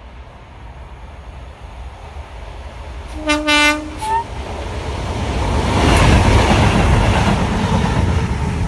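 British Rail Class 37 diesel locomotives with English Electric V12 engines, approaching and passing close by at speed. About three seconds in the horn sounds two notes, a held low note and then a short higher one. The engine and wheel noise then grows into a loud rumble as the train goes past.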